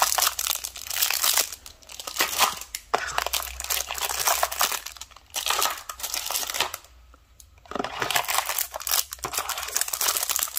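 Thin clear plastic bags around contact lens cases crinkling as they are picked up and shuffled by hand, with a short lull about seven seconds in.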